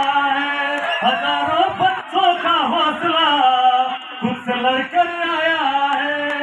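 A man singing into a handheld microphone, amplified, in long held notes that bend up and down, with short breaks between phrases.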